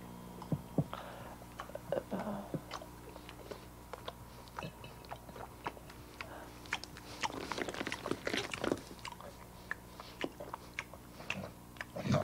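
Messy eating at a dinner table: chewing and crunching with many short clicks of cutlery and dishes, busiest in the middle, over a steady low hum.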